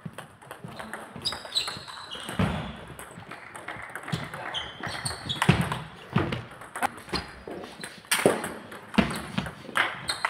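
Table tennis rally: a celluloid-type ball clicking sharply off the bats and table in quick exchanges, with a few short high squeaks.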